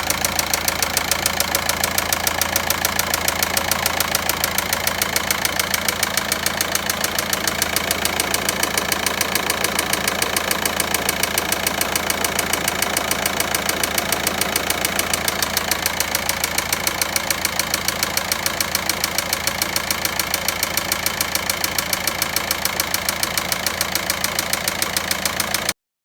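Volkswagen Passat 1.9 diesel engine idling with an even, rapid ticking knock, about three to four a second: the unexplained engine noise whose source is being sought. It cuts off suddenly near the end.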